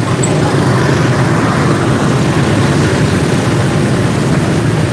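Dense motorbike and car traffic crossing a pontoon bridge: many small engines running together as a steady low rumble.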